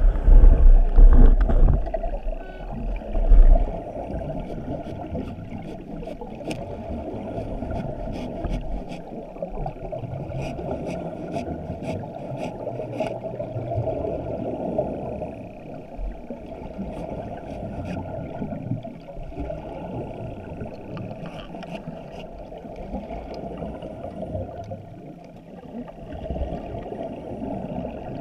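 Muffled underwater noise heard through a waterproof camera housing, with the gurgling rush of a surface-supplied diver's exhaust bubbles. A heavy low rumble fills the first few seconds, and scattered faint clicks come and go around the middle.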